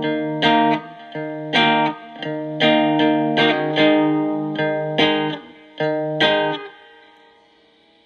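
Electric guitar played through a breadboarded Distortion+ clipping circuit, its diodes set by a diode substitution box. A riff of distorted chords is struck every half second or so, and the last chord rings out and fades about seven seconds in.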